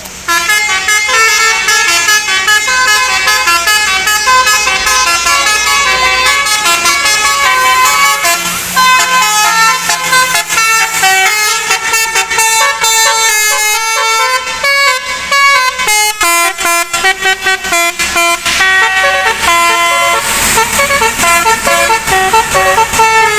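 Basuri telolet horn on a tour bus, a set of air-horn trumpets driven by a DAV horn module, playing a loud, fast melody of short notes that jump up and down in pitch several times a second.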